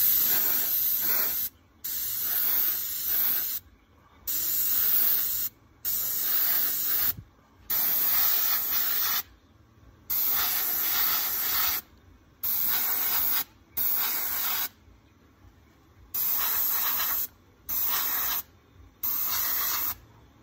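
Gravity-feed airbrush spraying paint in a series of about eleven short hissing bursts, each a second or two long, with brief pauses as the trigger is let off between passes.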